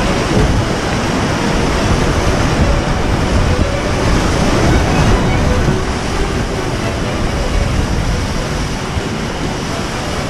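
Whitewater rapids rushing and churning around a kayak as it runs down through them, a loud, steady roar of water close to the boat.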